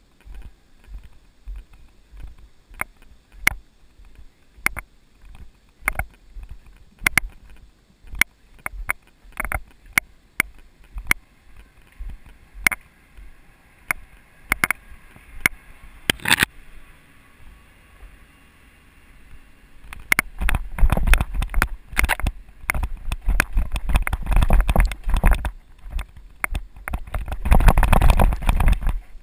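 Mountain bike descending a bumpy dirt single-track: irregular sharp clicks and knocks of the bike and camera mount rattling over the trail, then from about two-thirds in a dense, loud low rumble of wind and tyre noise with continued clatter as the ride speeds up.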